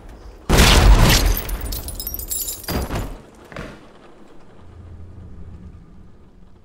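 A heavy gunshot blast through a door about half a second in, with splintering debris rattling and crackling as it dies away, then a second sharp shot near three seconds and a smaller report just after. A faint low hum is left afterwards.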